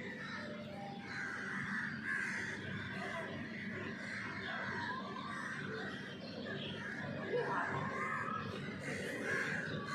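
Many birds calling at once in a dense, overlapping chatter.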